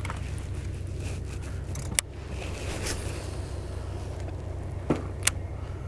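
Jon boat's motor running with a steady low hum, with a sharp knock about two seconds in and two more near the end.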